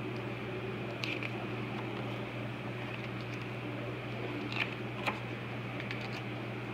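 Steady low hum of room tone, with a few faint rustles of a picture book's paper pages being handled, about a second in and twice more near the end.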